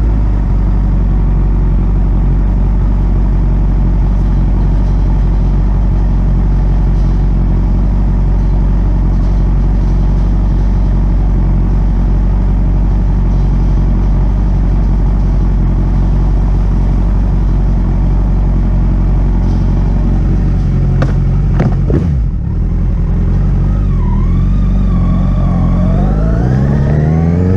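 Kawasaki Z1000's inline-four engine idling steadily, with a couple of knocks about 21 seconds in, then revving up with a rising pitch as the motorcycle pulls away near the end.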